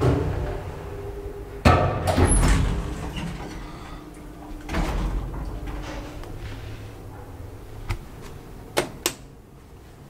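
KONE elevator doors sliding and clunking: a loud clunk and clatter about two seconds in, a softer one around five seconds, and a few sharp clicks near the end over a steady low hum.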